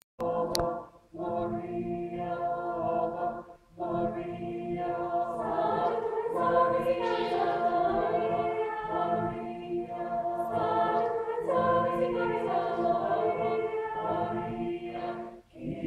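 Small mixed choir of women and men singing held chords in phrases, with brief breaks for breath near the start, a few seconds in and near the end.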